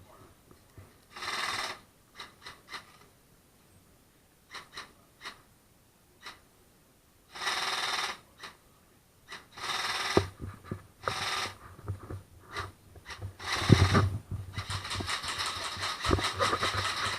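Airsoft guns firing: scattered single clicks and several short noisy bursts, then a fast rattling run of shots in the last few seconds.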